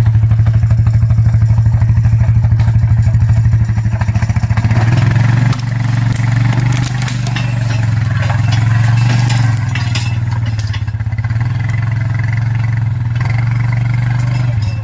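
ATV engine running under steady throttle, its pitch shifting a few times as the revs change.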